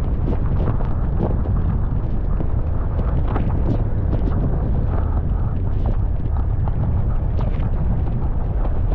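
A car driving over an unplowed, snow-covered street: a steady low rumble of tyres and road noise, with frequent small irregular crunches and knocks, and wind buffeting the microphone.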